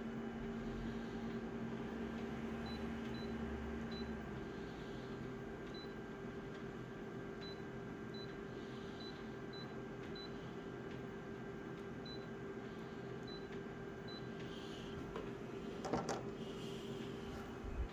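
Photocopier touchscreen giving a short high beep with each key press as numbers are entered, about a dozen at uneven intervals, over the machine's steady hum. A sharp knock about 16 s in.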